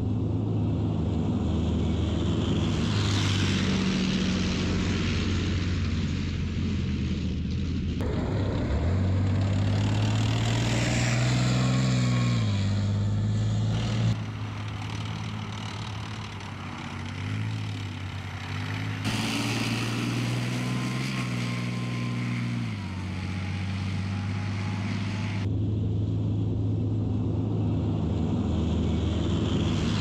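Leopard 2 main battle tanks driving, their V12 diesel engines giving a steady low drone. The engine note climbs and drops in the middle, and the sound changes abruptly several times where shots are cut together.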